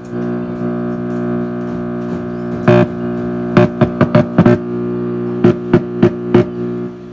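Guitar amplifier used as a test amp, its speaker giving out a steady loud hum-buzz as the test lead with a coupling capacitor is handled, with about ten loud pops and crackles in the middle. The buzz starts suddenly and cuts off shortly before the end.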